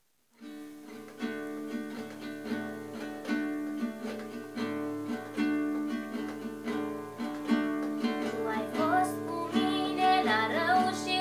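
Acoustic guitar strummed in a steady rhythm of chords, starting just after the beginning. A young girl's voice comes in singing along with it about eight seconds in.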